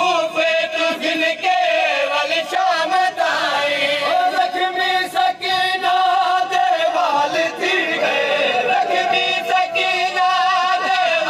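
Men's voices chanting a noha, a Shia lament, into a microphone in long wavering sung phrases.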